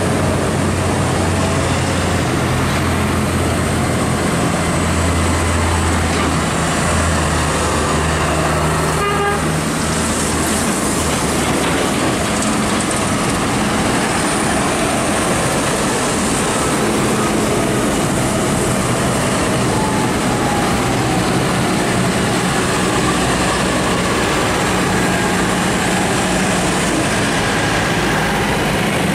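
A procession of large farm tractors (a Case IH, a JCB Fastrac and a Fendt among them) driving past one after another, their diesel engines running steadily and swelling as each one draws level, with tyres on the wet road.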